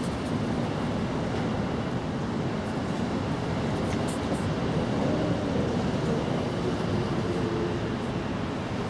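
Steady low rumbling background noise with no breaks.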